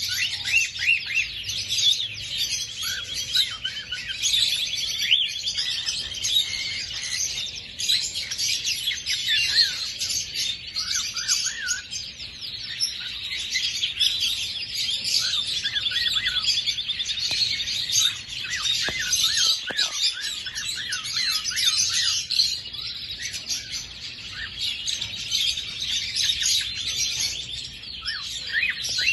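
Several young male cockatiels chirping and warbling, with many short calls overlapping.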